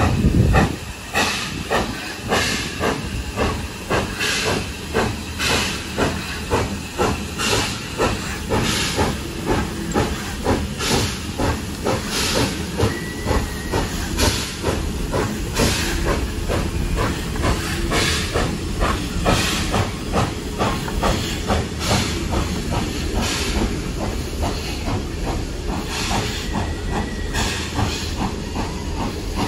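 Steam locomotive working, its exhaust chuffing in regular beats over a constant hiss of steam, the beats coming closer together as it gathers speed. A heavy low thump sounds right at the start.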